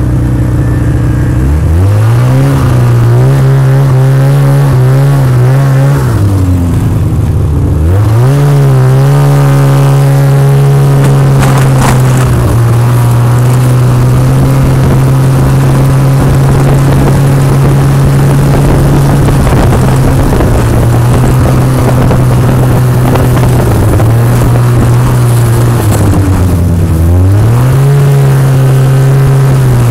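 Snowmobile engine under way, heard from the machine itself: it revs up about a second and a half in, eases off and picks up again around six to eight seconds, holds a steady pitch, then slows briefly and pulls up again near the end.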